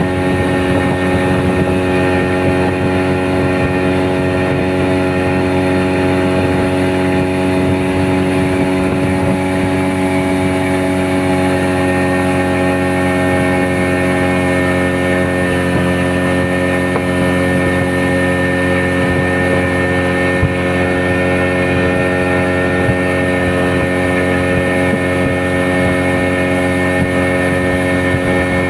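Small boat engine running at a steady, unchanging speed while under way on the river.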